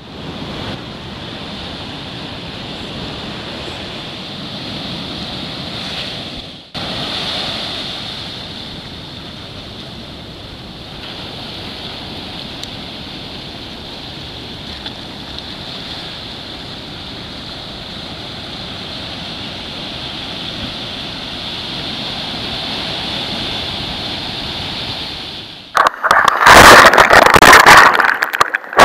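Steady surf and wind noise on the microphone, dropping out briefly about seven seconds in. Near the end comes loud, ragged rushing and splashing as broken waves wash over the deck of a sit-on-top kayak, close to the microphone.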